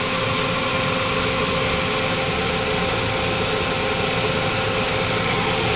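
Toyota Vios 2NZ inline-four engine idling steadily, with a rough idle from a vacuum leak: a hardened, leaking PCV valve hose at the intake manifold.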